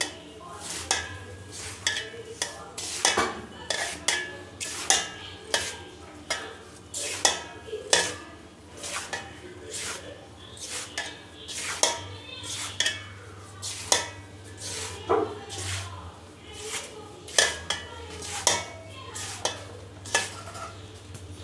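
Hands rubbing ghee into dry flour in a bowl, a dry scraping with many short, irregular scuffs and taps as the fingers work against the bowl. This is the rub-in stage of flaky kachori dough.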